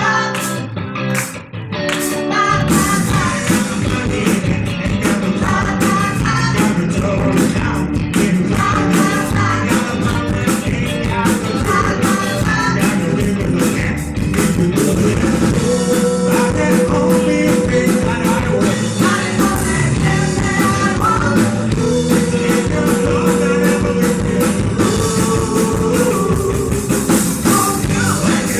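Live band playing a rock-and-roll/soul number with lead and backing vocals, electric guitars and drum kit. It opens with a few short stop-time hits, and the full band comes back in after about two seconds.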